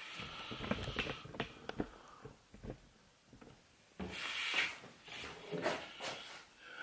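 Quiet handling and movement noises: a few light taps and knocks in the first two seconds, then a short scuff and clothing rustle about four seconds in as a person walks around a piece of furniture.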